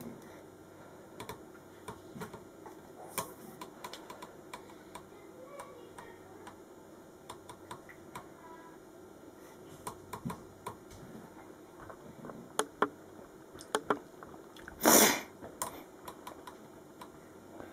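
Scattered light clicks and taps, with one short, loud burst of noise about fifteen seconds in.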